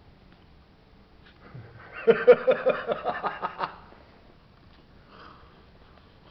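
A person laughing: a quick run of about a dozen voiced bursts lasting about a second and a half, starting about two seconds in.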